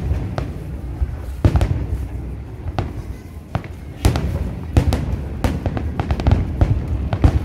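Aerial fireworks shells bursting in quick succession: many sharp bangs and crackles over a continuous low rumble, with music playing underneath.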